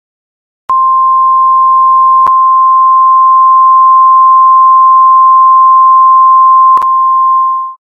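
Emergency alert attention tone: one loud, steady, single-pitched beep lasting about seven seconds. It starts sharply just under a second in, has faint clicks at its start and twice during, and fades out quickly near the end.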